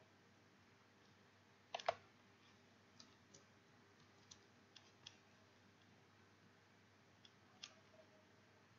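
Faint, scattered clicks of a computer keyboard and mouse against near silence, with a louder double click about two seconds in.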